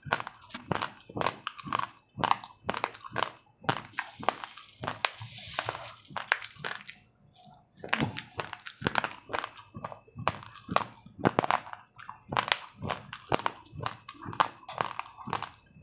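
Uncooked rice grains being crunched between the teeth: rapid, sharp crunches, several a second, with a short pause about seven seconds in.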